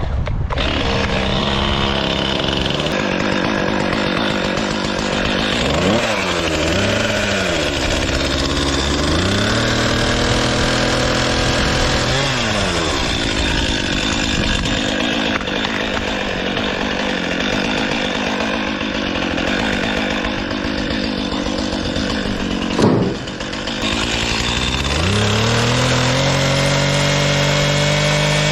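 Two-stroke chainsaw running and cutting small branches, its engine speed rising and falling again and again as the throttle is worked and the chain takes load. Its pitch briefly drops near the end, then it revs up high and holds before falling away.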